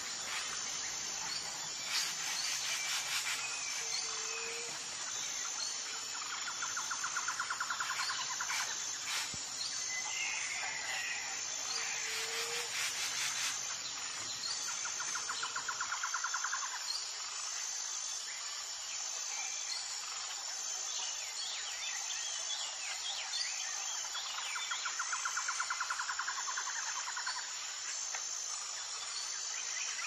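Insects chirping: a steady high pulsing trill, with a lower pulsed trill that comes and goes every few seconds and a few brief bird chirps. A faint low background rumble stops about halfway through.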